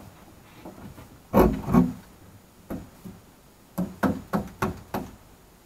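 Claw hammer knocking a wooden cross piece into place between the framed plywood walls: two hard blows about a second and a half in, then a quicker run of five lighter taps near the end.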